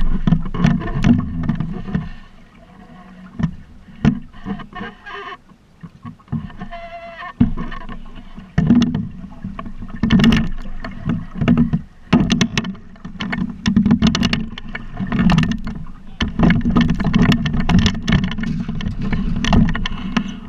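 Buccaneer 18 sailing dinghy moving under sail: a gusting, uneven low rumble of wind and water around the boat, with frequent knocks and clicks from the boat and its fittings.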